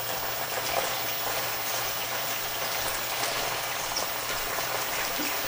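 Chicken pieces frying in coconut oil in a pan: a steady sizzle as the chicken renders its own fat, with a few faint clicks of tongs turning the pieces.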